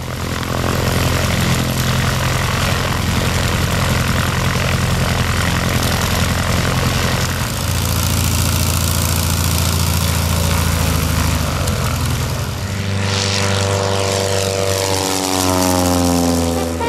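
Van's RV light aircraft's piston engine and propeller at high power, running steady and loud. Its pitch falls over the last few seconds as it flies past and away.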